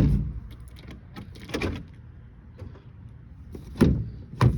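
Aftermarket electric door lock actuator in a Ford Transit Connect door clunking as the locks are cycled: a few sharp, short clunks, the loudest near the end. The owner judges the new actuator to be wired backwards, locking when it should unlock.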